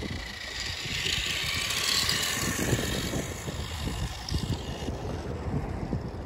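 Radio-controlled toy Corvette running across asphalt, a hissing whine of motor and tyres that swells in the first few seconds and fades near the end as the car drives away. Wind buffets the microphone underneath.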